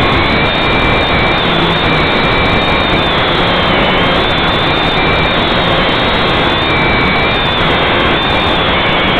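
Motor and propeller whine of a small radio-controlled aircraft, recorded close up by its onboard camera: a loud steady rushing noise with a high whine whose pitch wavers up and down as the motors speed up and slow down.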